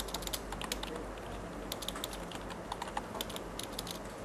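Computer keyboard keys clicking as a short terminal command is typed: irregular keystrokes in small runs with brief pauses, over a steady low hum.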